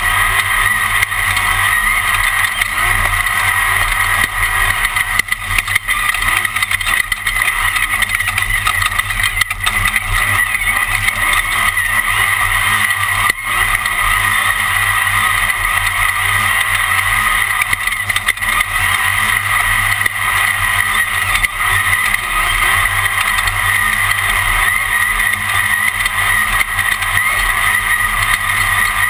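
Class 1 off-road race car's engine running hard and steady at racing speed, heard from on board.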